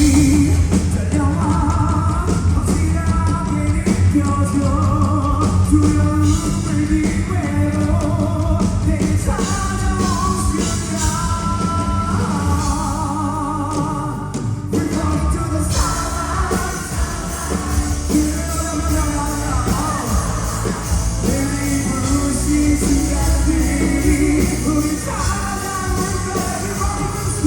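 Rock band playing live over a venue PA, a male lead singer holding sung lines with vibrato over bass, guitar and drums. The band eases off briefly a little past halfway, then comes back in.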